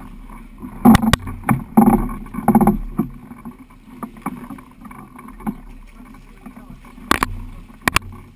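Sharp knocks and bumps on an inflatable flying-boat hull and its trike frame as a passenger climbs aboard: a cluster about a second in and two more near the end, over faint wind and lapping water. The engine is not running.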